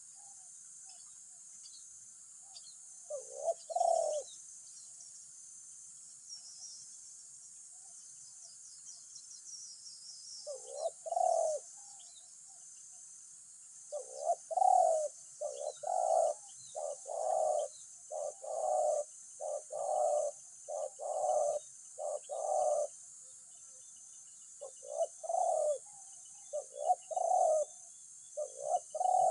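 Spotted doves cooing in repeated phrases, a few at first and then many in quick succession through the middle, over a steady high hiss and faint chirps from small birds.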